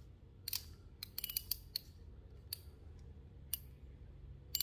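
Light scattered clicks from handling a Shimano Stella spinning reel and its freshly taped spool, with a fast run of ratchet-like clicks just before the end.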